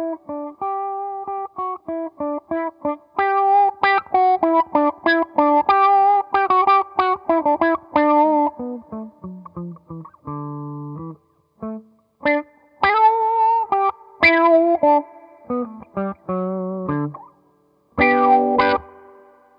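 Electric guitar played through a SolidGoldFX Supa Funk envelope filter pedal, its attack knob set counterclockwise so the filter needs harder picking to trigger and pop open. Quick runs of short picked single notes come first, then lower held notes and short chord stabs.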